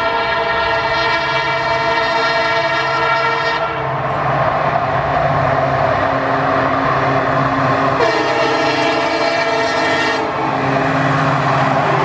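WDP4 diesel locomotive's horn blowing in a long blast, then a rushing passing-train noise with the diesel engine and wheels on rail, and the horn sounding again from about two-thirds in.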